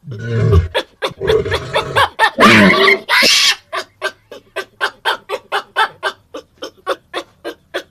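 Kangaroo vocalising: a few grunts and a short pitched call, then a quick series of short clucking pulses, about four a second.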